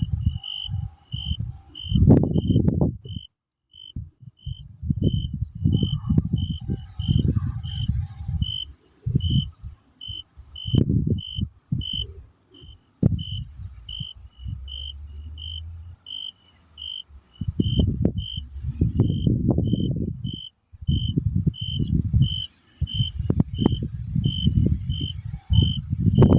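Crickets chirping: a steady run of short, evenly spaced chirps, about one and a half a second, over a fainter, higher continuous trill. Irregular bursts of low rumble come and go and are the loudest sound.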